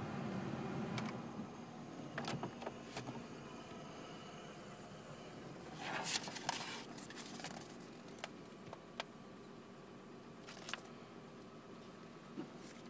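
Steady low hum of the climate-control blower fan that winds down over the first two seconds after a button press on the 2001 Honda Insight's climate panel. Then scattered plastic clicks and knocks from hands on the dashboard and glove box, loudest in a quick cluster about six seconds in.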